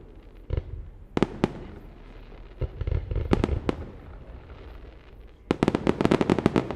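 Fireworks display: aerial shells bursting with sharp bangs that echo, a few singly and in small groups, then a rapid string of crackling reports about five and a half seconds in.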